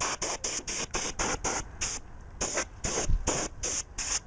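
Can of compressed-air duster fired in rapid short hissing bursts, about a dozen, with a brief pause about two seconds in, blowing dust out of a laptop's fan and vent grill.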